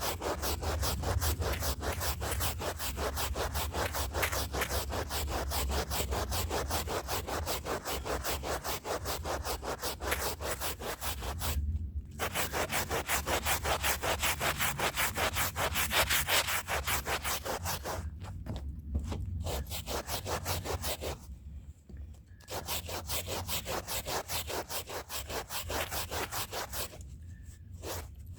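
A stiff hand brush scrubbing a rug's fibers in rapid, even back-and-forth strokes, stopping briefly about four times.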